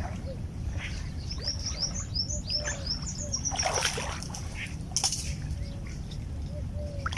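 A bird singing a quick run of about a dozen short, rising, high chirps, lasting about two seconds. Two brief splashy noises follow, about four and five seconds in, over a steady low rumble.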